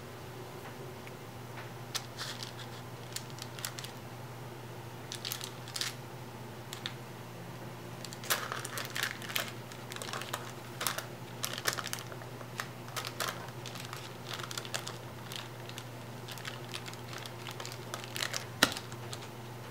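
A silicone spatula scraping thick pound-cake batter out of a glass bowl and spreading it in a parchment-lined glass loaf pan: scattered soft scrapes, taps and paper crinkles, busiest in the middle, with one sharper knock near the end.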